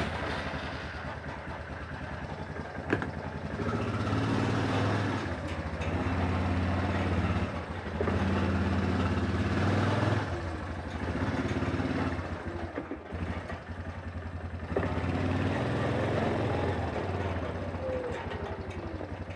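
Yamaha Grizzly 350 ATV engine running just after start-up, its speed rising and falling a few times, with a falling pitch near the end.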